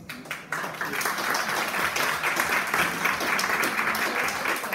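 A roomful of people applauding, many hands clapping at once; it swells about half a second in and then holds steady.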